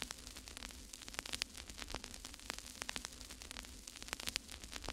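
Faint static: irregular crackling clicks over a steady hiss and a low hum.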